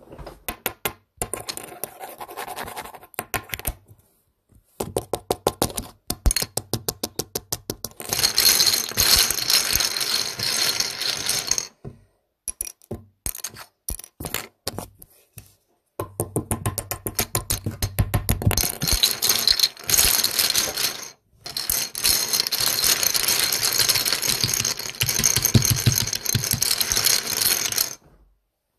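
Plastic LEGO bricks clattering and rattling in long bursts of rapid clicks, with short pauses between the bursts.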